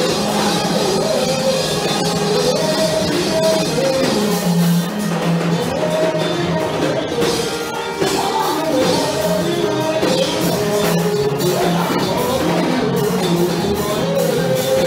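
Live gospel praise music: a man sings lead into a microphone over instrumental accompaniment, with a small choir of women joining in.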